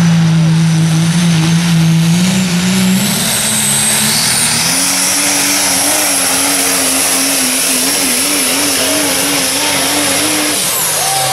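Super stock diesel 4x4 pulling truck at full throttle under load from the pulling sled, the engine running hard with a high turbocharger whistle over it. The engine note climbs a few seconds in and wavers, and near the end the turbo whistle falls away as the throttle comes off.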